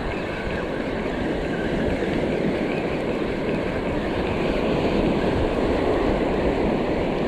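Steady rush of ocean surf and wind on the microphone.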